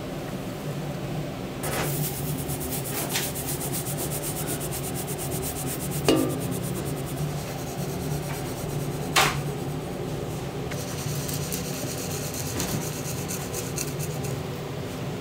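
Rapid rubbing, scraping strokes, starting about two seconds in, with two sharp clinks a few seconds apart, over a steady machine hum.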